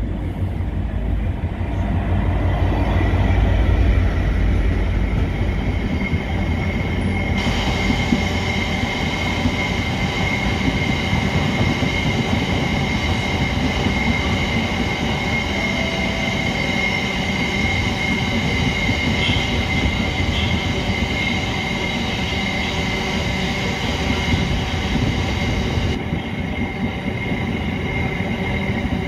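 GB Railfreight Class 66 diesel locomotive passing close, its two-stroke EMD engine loudest in the first few seconds. A long train of box wagons follows, rolling past, and from about seven seconds in a steady high squeal from the wagon wheels runs over the rolling noise until near the end.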